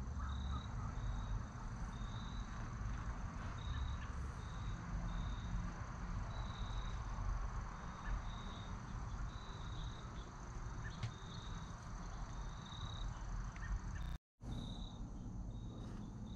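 Outdoor insects, crickets by their sound, chirping in short high chirps about once or twice a second over a low steady rumble.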